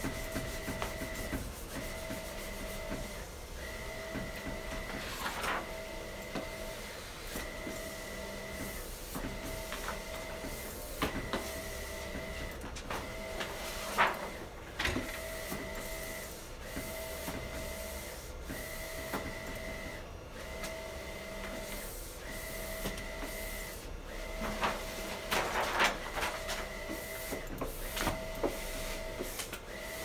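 Wide-format inkjet printer running, its print carriage whirring in short, evenly repeated passes about every second and a half. A few brief scrapes of a plastic squeegee over vinyl come in about five seconds in, around the middle and near the end.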